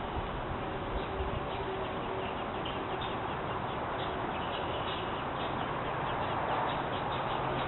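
Baby birds cheeping, many short high chirps in quick succession over a steady background hiss.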